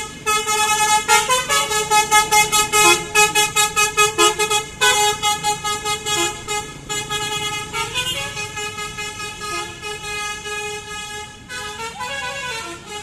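Telolet: a tourist coach's multi-tone air horn playing a fast, stuttering tune of several notes. The horn fades as the coach pulls away.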